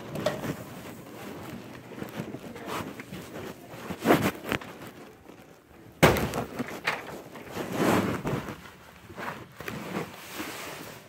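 Rustling and bumping of a hand-held camera as it is carried and moved around, with footsteps and a few sharp knocks. The loudest knock comes about six seconds in.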